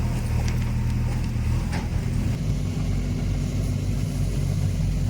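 Diesel engine of a JCB 3DX backhoe loader running steadily, its note shifting slightly just after two seconds in.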